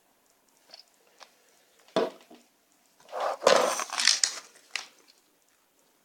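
Handling noise on a table: a few small clicks, a sharp knock like a can being set down about two seconds in, then loud crinkling and crackling of a stiff plastic blister pack being handled for about two seconds.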